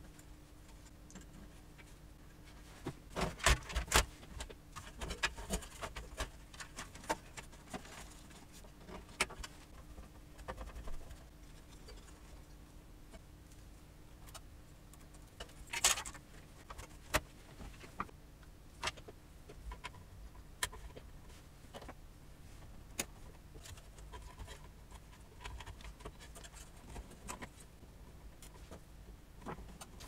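Scattered clicks, taps and rattles of cables and connectors being handled and plugged in inside a metal PC tower case, with a cluster of louder knocks about three to four seconds in and a single sharp one about halfway through.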